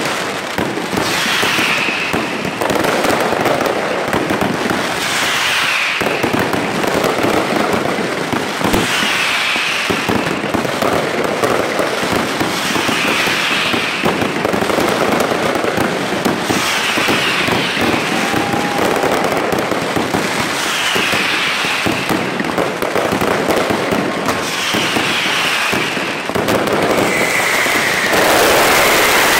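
Mascletà firecracker barrage with aerial fireworks: a continuous, dense crackle and banging of exploding firecrackers, with short falling whistles every few seconds. It grows louder near the end.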